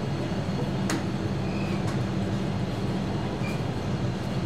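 A steady low mechanical drone, with one sharp metallic clink about a second in.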